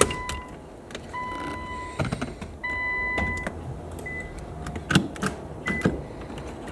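A 2014 Infiniti Q50's warning chime beeping over and over at one steady pitch, long beeps at first and then short ones, mixed with sharp clicks and knocks of plastic console trim and wiring connectors being unclipped.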